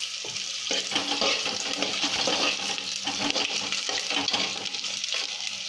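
Bombil (Bombay duck) frying in hot oil in a steel pot: a steady, dense sizzle full of fine crackles, with the pieces being stirred with steel tongs.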